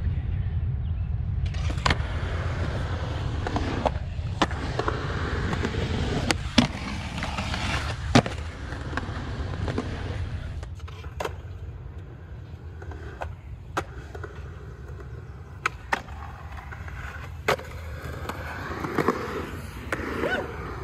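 Skateboard wheels rolling on concrete with a steady low rumble, broken by a series of sharp clacks of the board striking the ground, the loudest about eight seconds in.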